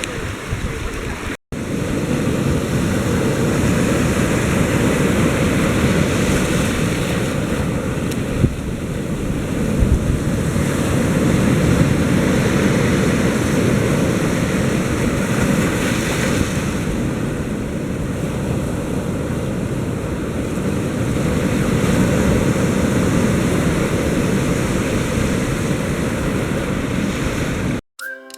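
Ocean surf with wind buffeting the microphone: a loud, steady, low rushing noise. It drops out for an instant about one and a half seconds in.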